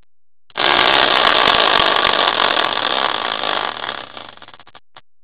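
Hand-spun prize wheel on a caster wheel, its pointer ticking against the turning rim. The ticks start about half a second in as a fast, buzzing rattle, then slow and fade to a few separate clicks as the wheel coasts to a stop about five seconds in.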